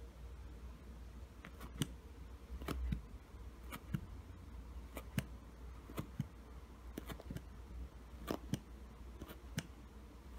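Wooden lace bobbins clicking against one another as pairs are crossed and twisted on a bobbin-lace pillow: irregular sharp clicks, about one or two a second, over a low steady hum.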